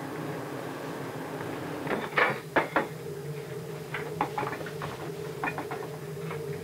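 Plates and dishes clattering as they are set down on a table: a few sharp knocks about two seconds in, then lighter clinks, over a steady low machinery hum.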